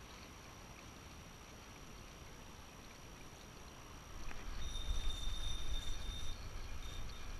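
Sea water lapping against shoreline rocks. From about four seconds in, wind buffets the microphone with a low rumble, and a faint steady high whine sounds for a second or two.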